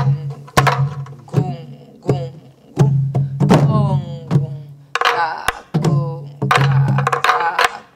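Sori-buk, the Korean pansori barrel drum, struck with a wooden stick in an uneven traditional rhythm pattern. Sharp stick strokes mix with booming head strokes that ring on with a low tone and a falling pitch.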